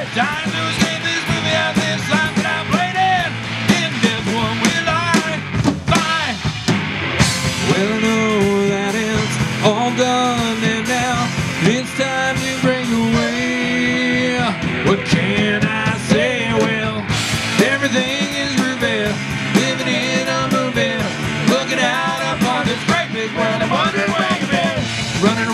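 Live rock band playing: electric guitars, bass guitar and drum kit, with a melody line bending up and down in pitch over the top.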